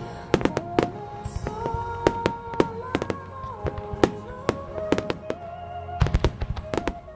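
Aerial fireworks bursting in quick succession with sharp bangs and crackles, over music with a slow, sustained melody. A cluster of heavier, deeper booms comes about six seconds in.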